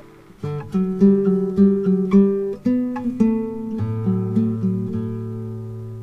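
Background music on acoustic guitar: plucked and strummed notes in the first half, then held chords with a low bass note coming in about four seconds in.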